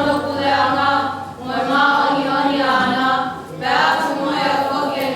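Group of voices singing long held notes together in harmony, with short breaks between phrases about one and a half and three and a half seconds in.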